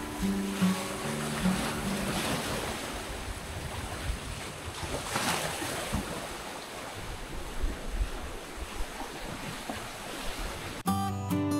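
Black Sea waves washing onto a beach in slow surges, with wind rumbling on the microphone. An acoustic guitar tune cuts in abruptly near the end.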